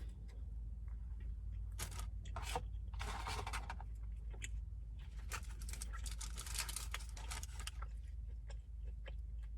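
Eating sounds: chewing, with crackly rustling of fast-food paper packaging coming in short spells, over a low steady hum.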